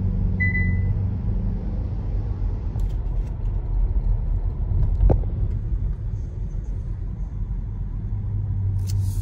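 Inside a moving car: steady low road and engine rumble. A brief high beep sounds about half a second in, and a single thump about five seconds in.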